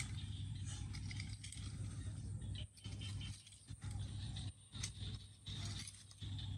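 A rake scraping and scratching through a heap of soil and dry plant debris in repeated strokes, over a steady low hum that cuts out briefly several times in the second half.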